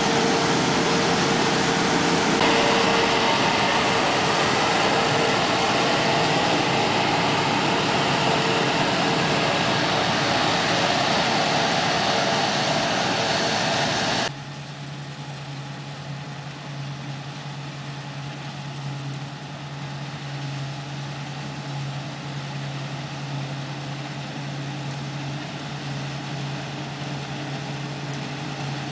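Claas Dominator 140 combine harvester running steadily while harvesting barley: a dense mechanical noise over a steady low engine hum. About halfway through the sound drops abruptly to a quieter, duller steady hum.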